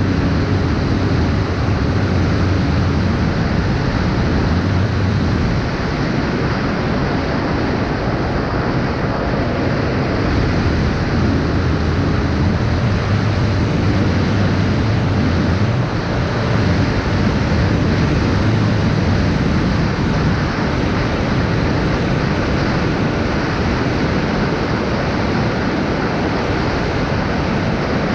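FPV quadcopter in flight: a steady rush of wind noise with a low hum from the motors, unbroken and fairly even in level.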